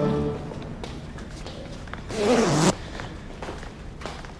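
A zipper pulled once in a quick half-second stroke about two seconds in, its rasp wavering in pitch with the pulling speed.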